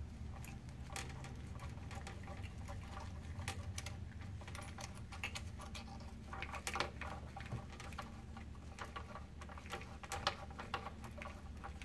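Faint, irregular small clicks and ticks of gloved hands handling the throttle wheel and its small parts on a jet ski's carburetor linkage, a few louder knocks about 7 and 10 seconds in, over a steady low hum.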